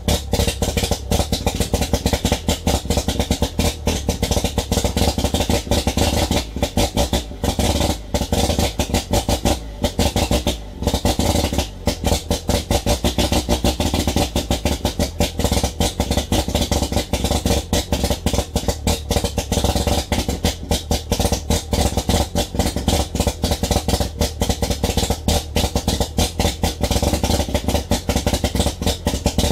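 Turbocharged 13B two-rotor rotary engine of a 1988 Mazda RX-7 FC running with no exhaust fitted: a loud, rapid crackling popping with a few brief dips, as the engine struggles to keep running on its first start.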